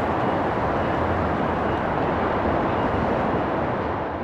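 Steady rush of outdoor traffic noise, fading out at the end.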